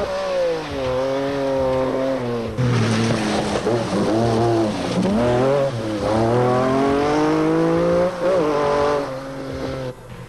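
MG Metro 6R4 rally cars' 3-litre V6 engines revving hard, the pitch climbing and dropping again and again with throttle and gear changes. The engine sound falls away sharply near the end.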